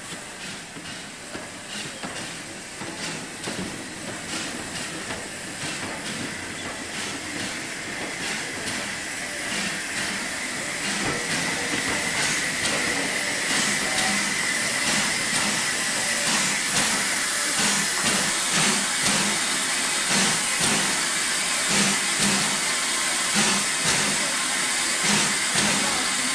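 LNER J15 0-6-0 steam locomotive running slowly and drawing closer, growing steadily louder, with steam hissing and a regular beat about twice a second in the second half.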